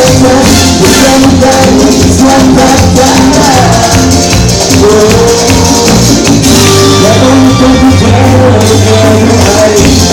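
Loud live cuarteto band music with a steady dance beat and a melody line.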